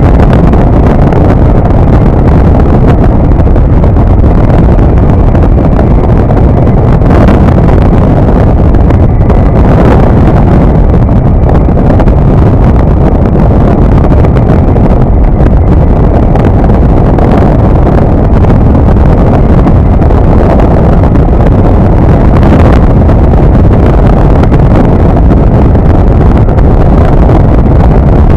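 Loud, steady wind rush buffeting the microphone of an open flex-wing microlight in flight, mixed with the drone of its Rotax 912 engine.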